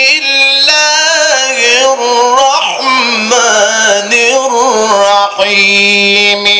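A male Quran reciter chanting into a microphone in the melismatic mujawwad style. His voice carries long, wavering, ornamented notes and ends on a long steady held note.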